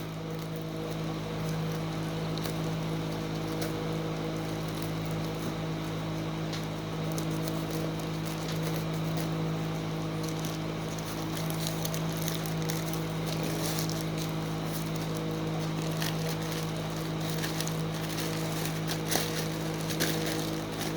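Plastic packaging crackling and clicking as it is handled and torn open, with many short crinkles, busier in the second half. A steady low hum runs underneath.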